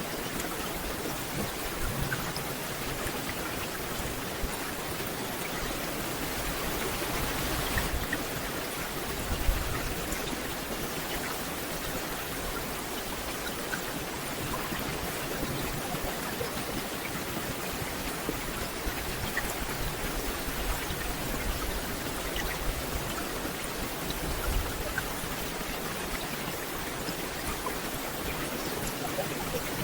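Steady rain falling on forest foliage, a constant hiss with scattered drop ticks and occasional low rumbles.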